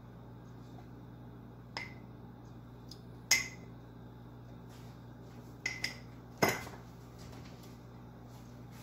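A metal spoon clinking against a metal cooking pot: five or so short, sharp clinks spread over several seconds, the loudest about three and a half seconds in. A steady low hum runs underneath.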